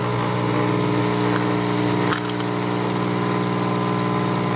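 Coffee machine's pump humming steadily while it brews a cappuccino, with a short click about two seconds in.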